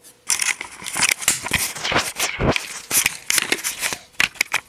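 Handling noise as a cardboard box is picked up and carried, with the camera jostled: a busy, irregular run of rustles, scrapes and knocks of cardboard.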